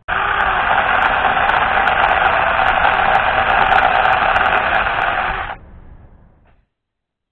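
Battery-powered mini chainsaw running steadily while cutting through a dry branch. It stops about five and a half seconds in, fading out over the following second.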